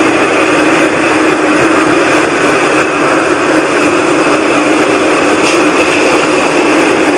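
Loud, steady rushing drone with a low hum and a higher held tone over a whooshing hiss, never letting up: the unexplained 'strange sound in the sky'.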